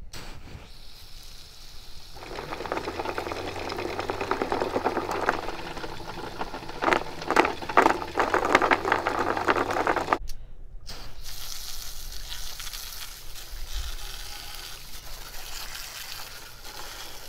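A jet of water spraying and splattering onto a catamaran's foredeck trampoline netting, with a steady low hum underneath. It starts about two seconds in, grows louder in the middle and cuts off suddenly about ten seconds in. A softer hiss follows.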